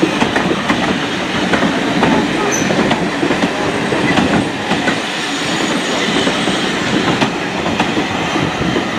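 Steam-hauled train of passenger coaches rolling past close by: a steady rumble of wheels on rail, with scattered clicks as the bogies run over the rail joints.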